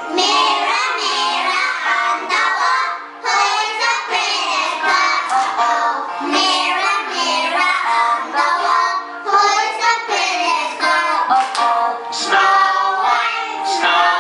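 A group of young girls singing a children's song together.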